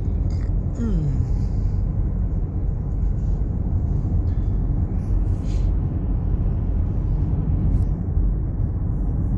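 Steady low road-and-engine rumble of a car being driven, heard from inside the cabin.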